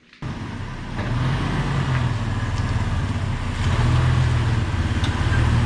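Jeep Wrangler TJ's 4.0-litre inline-six engine running steadily, getting louder about a second in.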